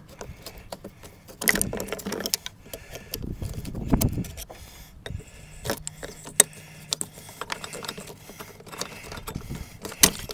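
Screwdriver clicking and clinking against the metal hose clamp and the plastic air intake housing as the air box is worked loose. Irregular sharp clicks, with a few duller knocks and rustles of the plastic duct.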